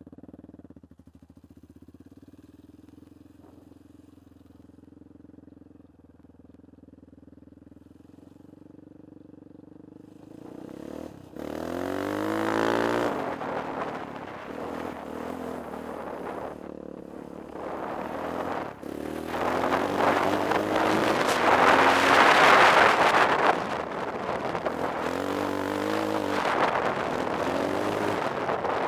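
Yamaha Raptor 700 quad's single-cylinder engine idling quietly, then from about ten seconds in revving up and pulling away, its pitch rising and falling again and again with the throttle as it rides along a dirt track, with wind noise over it.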